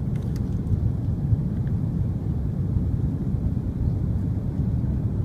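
Airbus A330-200 passenger cabin on final approach: a steady low rumble of engines and airflow, heard from inside the cabin at a window seat.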